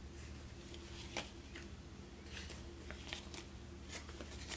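Paper banknotes faintly rustling and flicking as they are pulled from a tray and counted into a stack, with a sharper flick about a second in and a cluster of rustles around three seconds in, over a steady low hum.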